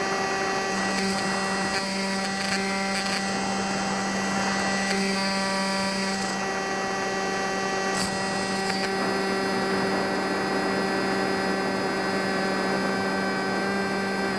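Brushless electric motor and propeller of a foam RC model plane running at a steady cruise, heard from onboard: a constant buzzing drone that holds one pitch, with air noise underneath.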